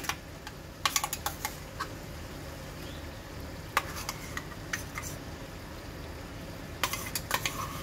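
A steel bowl and spatula knocking and scraping against a steel kadhai as cashew-tomato paste is added to frying masala: a few sharp clicks about a second in, once near four seconds and a cluster near the end, over a soft steady sizzle of the masala on the flame.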